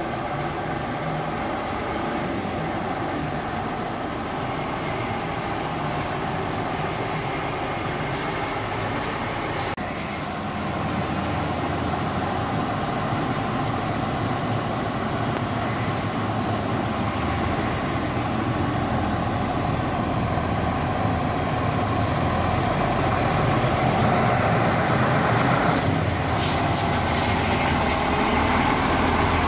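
The turbocharged, intercooled six-cylinder diesel engine of a 1986 DAF 3300 truck running at low speed. It gets louder about ten seconds in and again near the end.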